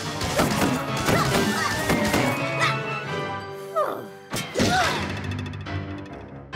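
Cartoon background music with a rapid run of slapstick impact effects, thuds and crashes, and a sharp whack about four and a half seconds in as a rubber plunger smacks onto a face.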